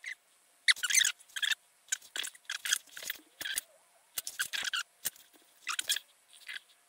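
Fingers handling a Pentax 67 viewfinder and working light-seal strips into place along its edges: irregular short scratchy rustles and scrapes with brief pauses between them.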